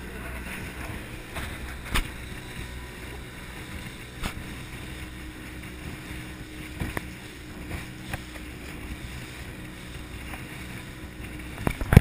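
Motor of a small open boat running steadily as it speeds across choppy sea, with water rushing past the hull and wind buffeting the microphone. A few sharp knocks break in, the loudest near the end.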